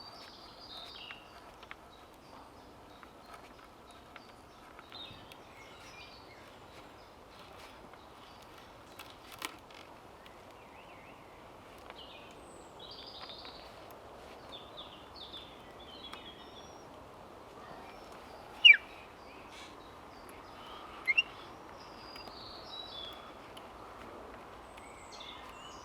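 Woodland birds chirping here and there over a steady outdoor hiss. Two loud, short, high squeaks come a couple of seconds apart, about three-quarters of the way through.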